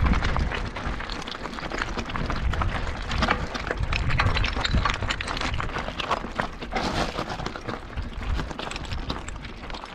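Mountain bike rolling over a rocky trail: tyres crunching on loose stones, and the frame and chain rattling with a dense, irregular clatter over a low rumble.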